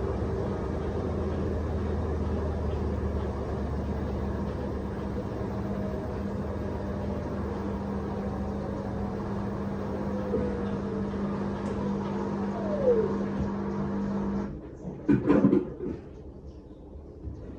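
Beko front-load washing machine running with a steady motor hum that cuts out about three-quarters of the way through, followed by a few sharp clunks.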